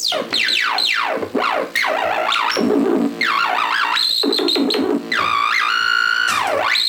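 Yamaha CS-20M analog monophonic synthesizer playing a run of rapid falling pitch sweeps, then stepped and held bright tones that glide down near the end.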